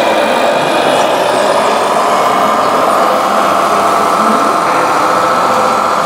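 Radio-controlled scale Mercedes-Benz Arocs tipper truck driving, with a steady engine-like running sound and a whine that rises slightly in pitch during the first few seconds.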